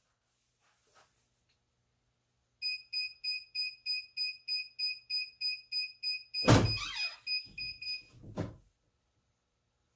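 Heat press's digital timer beeping about three times a second, the signal that the pressing time is up. A loud thunk comes partway through the beeping as the press is worked, and a smaller thump near the end.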